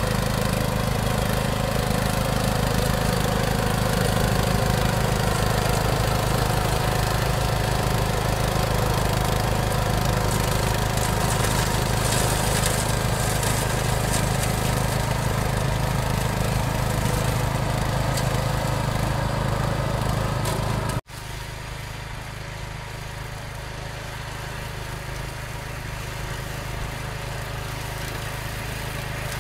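Engine of a DAKR walk-behind two-wheel tractor with a mower deck running steadily under load while cutting tall dry grass. About two-thirds of the way through it cuts abruptly to a quieter, more distant engine of a ride-on DAKR machine mowing.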